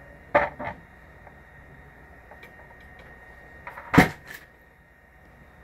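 Knocks of a heavy-duty swivel turntable being handled: two sharp knocks about half a second in, then a louder thump about four seconds in as it is laid flat, followed by a smaller knock.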